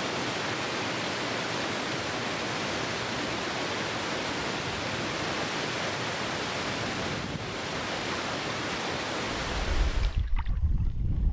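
Steady rush of water from a small stream cascade tumbling over rocks. About ten seconds in it cuts abruptly to a low rumble of wind on the microphone.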